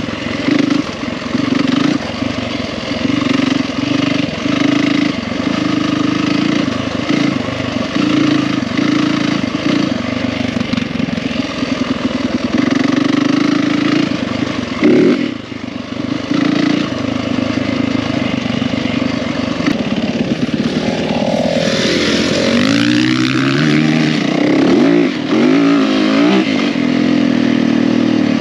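Yamaha WR450F single-cylinder four-stroke dirt bike engine running under throttle on a trail ride, its revs rising and falling with gear changes. Near the end the revs sweep up and down several times in quick succession.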